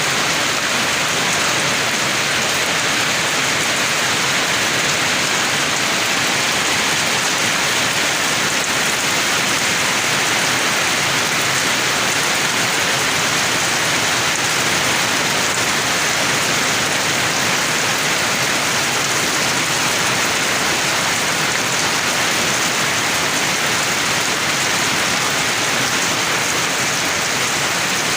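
Steady rain falling, an even, unbroken hiss with no letup.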